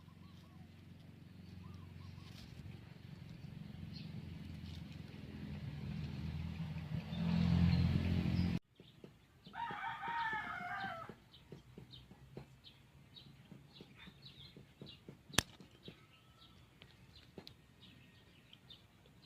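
A low rumble builds up and cuts off suddenly about eight seconds in. About ten seconds in, a rooster crows once, followed by faint scattered ticks and one sharp click.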